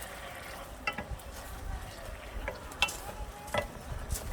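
Food sizzling in a pan as it is stirred, with several sharp clicks of a utensil against the pan and a low rumble underneath.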